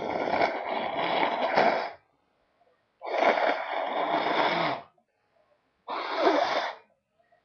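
A person blowing their nose three times: two long blows of about two seconds each, then a shorter one.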